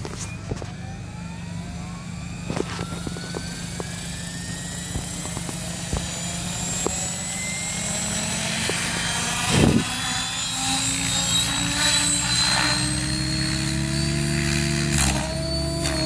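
Electric 700-size RC helicopter (Compass 7HV) spooling up: the motor and gear whine climbs steadily in pitch as the rotor comes up to speed, with a growing rotor whoosh. There is a brief loud rush just under ten seconds in, and the sound changes near the end as it lifts off.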